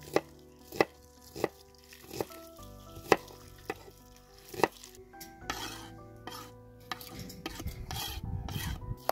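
Sharp knocks against a steel bowl, about one every half second to second. A few seconds later comes sloshing and rustling as napa cabbage leaves are stirred in water. Soft background music runs underneath.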